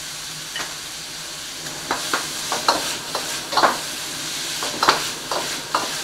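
Chicken and vegetables sizzling in a steel wok over a high wok-burner flame, a steady hiss. A metal ladle scrapes and knocks against the wok about nine times at irregular intervals as the food is stirred and tossed.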